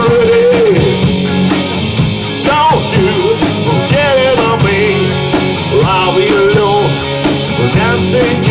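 Rock band playing live: distorted electric guitars over a steady drum beat, with a melodic line sliding up and down in pitch.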